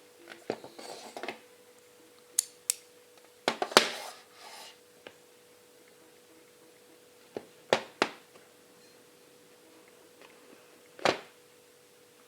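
A phone and its packaging being handled close to the microphone: scattered sharp taps and clicks, two short bouts of rustling, and one louder knock near the end.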